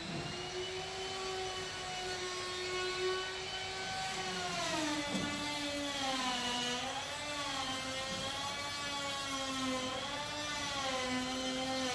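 Electric power tool's motor whining at a steady pitch. About five seconds in the pitch drops lower and then wavers up and down.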